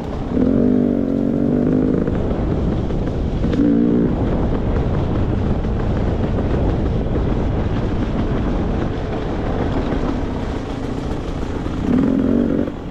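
Beta 300 RR two-stroke dirt bike engine running under way on a trail, over a steady rush of noise, with three brief held notes of engine pitch: near the start, about three and a half seconds in, and near the end.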